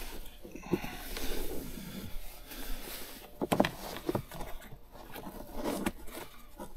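Rustling and scraping of plastic trim and headliner fabric as a dash cam's power cable is pushed in behind the curtain airbag along the roof rail, with a few light clicks and knocks.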